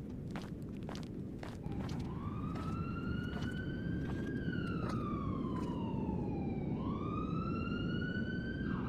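A siren wailing slowly: its pitch rises, falls for a few seconds, then rises again. It sounds over a steady low background rumble, with a run of sharp ticks in the first half.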